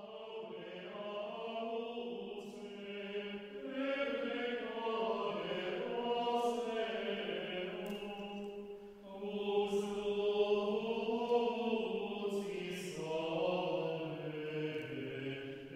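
Background music of a slow vocal chant: long sung notes that glide gently up and down in phrases, with a short break about nine seconds in.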